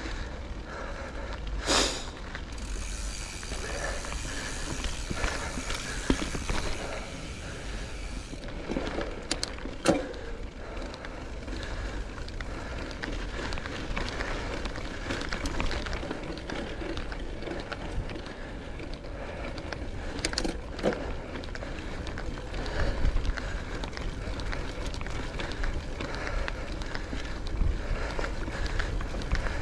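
Schwinn Axum mountain bike ridden along dirt singletrack: steady tyre and drivetrain rattle over a low rumble, with sharp knocks from bumps about 2, 10 and 21 seconds in.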